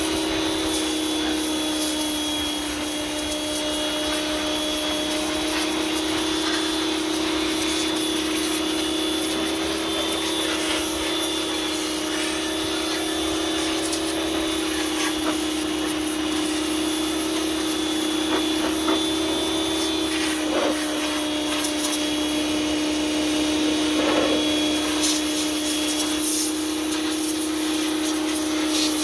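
Harbor Freight pressure washer running steadily, its motor holding a constant whine while the water jet hisses, blasting old grease and undercoating off a car frame.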